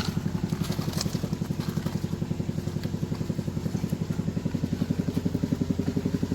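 A small engine running steadily at idle, with a fast, even pulsing beat.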